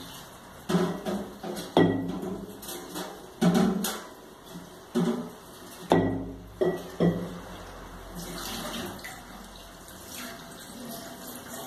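Kitchen tap running into a stainless steel sink while a plastic water-filter container is rinsed and scrubbed under it. The container knocks against the sink about seven times in the first seven seconds; after that the water runs on steadily.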